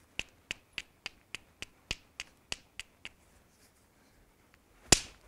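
Hammerstone tapping the edge of a Swan River chert core: eleven light, quick strikes at about three a second, trimming the platform's sharp edges. After a pause of under two seconds comes one much harder crack, the hard-hammer blow that detaches a flake.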